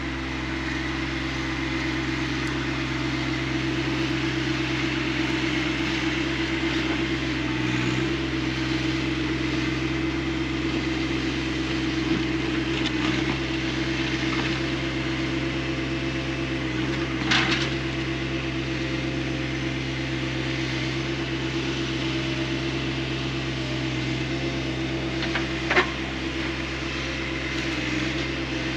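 Compact tractor's diesel engine running at a steady speed, with two short sharp knocks, one past the middle and one near the end.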